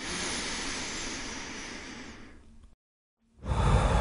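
Two hissing, whoosh-like sound effects under the closing title cards. The first starts suddenly and fades over about two and a half seconds. After a brief silence a second, louder and deeper one begins near the end.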